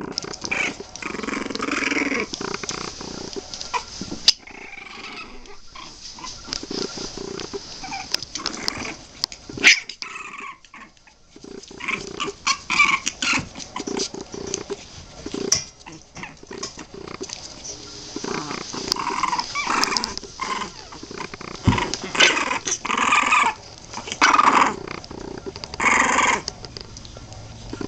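A litter of 23-day-old Boston Terrier puppies making many short, repeated little vocal sounds as they crawl and jostle over one another, with scuffling on the bedding; the sounds come thickest in the second half.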